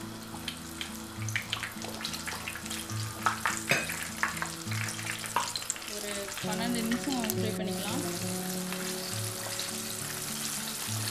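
Flour-coated chicken pieces deep-frying in hot oil in a pan: a sizzle full of sharp crackles and pops, settling into a steadier sizzle after about six seconds. Soft background music plays underneath.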